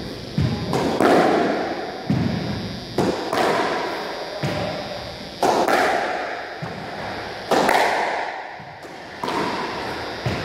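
Squash ball being struck by rackets and hitting the court walls in a rally: sharp knocks every second or two, each with a long ringing echo in the enclosed court.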